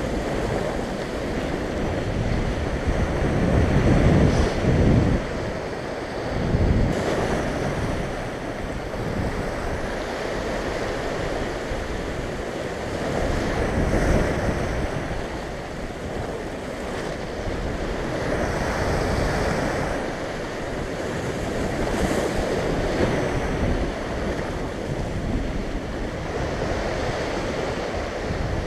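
Sea waves surging and breaking over a rocky shoreline, with wind buffeting the microphone. The surf swells and falls back in surges, loudest about four seconds in.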